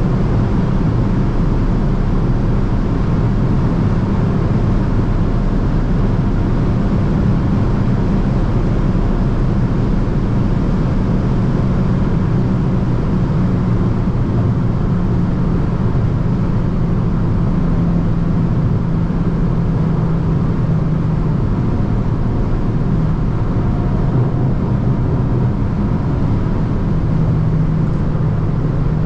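Hyundai i20 N's 1.6-litre turbocharged four-cylinder engine pulling at a steady, nearly constant pitch while cruising at motorway speed, over a steady rush of tyre and road noise.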